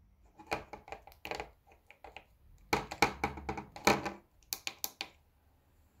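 Irregular clicks and knocks from hands handling small plastic hardware, in uneven clusters, the loudest and densest about three to four seconds in.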